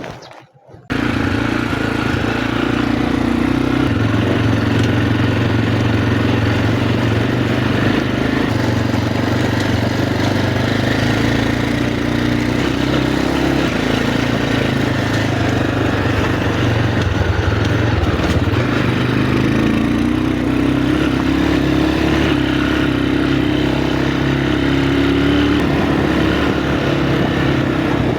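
Motorcycle engine running at steady throttle on a rough track, cutting in abruptly just under a second in; its pitch dips and then climbs again about two-thirds of the way through.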